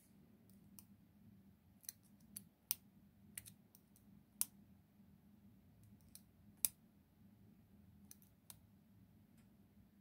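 Small, sharp metal clicks at irregular intervals as a steel hook pick probes and taps in the pin holes of a Ruko 600 cylinder's brass plug, with the two loudest clicks in the middle.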